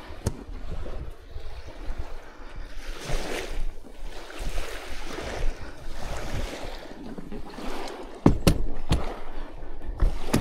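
Wind buffeting the microphone over small waves on the shore, with a few sharp knocks near the end.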